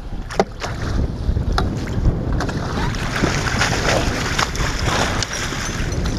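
Wind noise on the microphone, with water splashing and sharp knocks as a musky thrashes in a landing net at the side of the boat; the splashing grows louder about halfway through.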